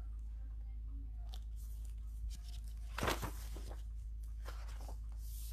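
Paper pages of a picture book being handled and turned: brief papery rustles, the clearest about three seconds in, over a low steady hum.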